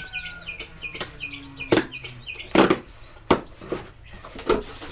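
About five sharp cracks and scrapes as a cardboard shipping box is cut and pulled open with a knife, over small birds chirping a quick repeated note through the first few seconds.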